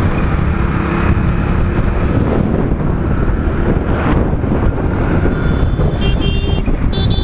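Wind rushing over the microphone on a moving motorcycle, with the motorcycle's engine and road noise running steadily beneath.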